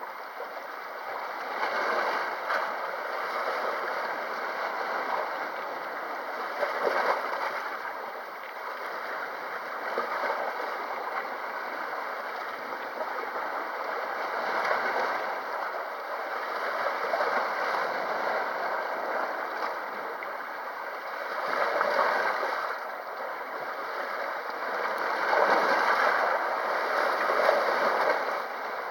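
Sea waves washing against the shore, the wash swelling and ebbing every few seconds.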